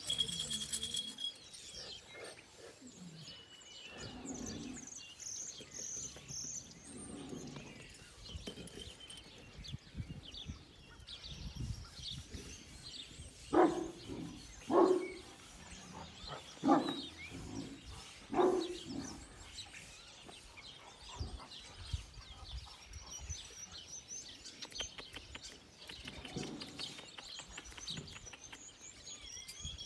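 Kangal dog giving four deep single barks, a second or two apart, about halfway through, against faint small-bird chirping.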